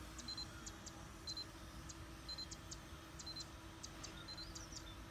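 Faint electronic metronome beeps from a radio-control transmitter, one short high beep about once a second with a light click alongside, over a faint steady hum.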